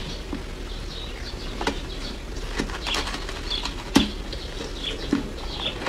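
Ice chunk coated in matcha powder being bitten and chewed: soft crackles and crunches throughout, with a sharp crack of a bite about four seconds in.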